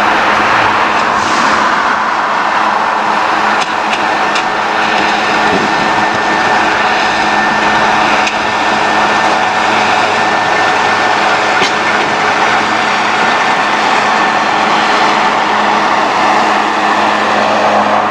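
Class 45 'Peak' diesel-electric locomotive's Sulzer twin-bank engine running steadily with a constant hum as it passes close by hauling coaches. Once the locomotive has gone by, about ten seconds in, the coaches keep rolling past on the rails, with a few light clicks.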